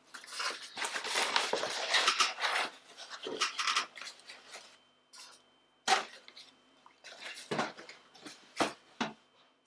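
Brown kraft packing paper rustling and crumpling as it is stuffed back into a cardboard box, followed by a few scattered knocks.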